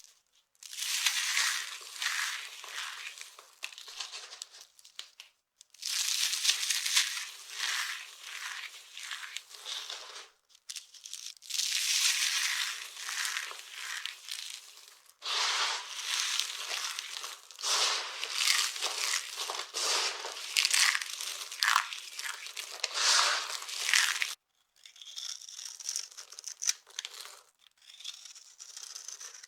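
Dry carved soap pieces being crushed and crumbled, a crisp crunching and crackling. It comes in about five separate stretches, each broken off by a brief silence, and the last is quieter.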